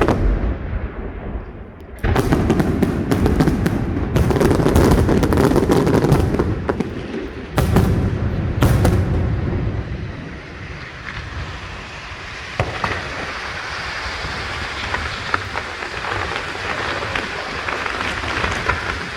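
Aerial fireworks display: a dense barrage of bursts with deep booms and sharp reports through the first half, thinning about halfway through into a steadier, softer crackle.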